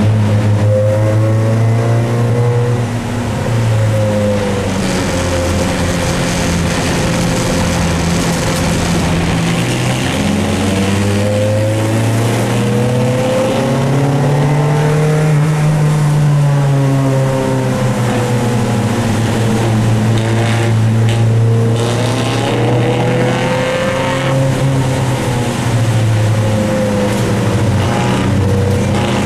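A Dodge Neon race car's four-cylinder engine heard from inside the cabin, its pitch climbing and falling again several times as the driver gets on and off the throttle. A steady hiss of rain and tyre spray runs beneath it.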